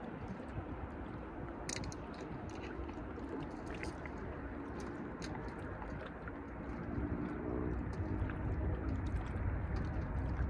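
Steady outdoor background noise with scattered small clicks and brief faint hums. A low rumble grows louder about seven seconds in.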